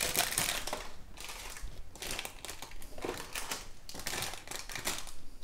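Small plastic packets and wrappers rustling and crinkling as they are handled and searched through, in uneven spells with small crackles.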